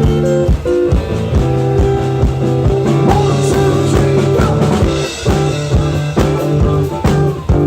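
Instrumental band music with guitar and drum kit playing a steady beat, with no singing.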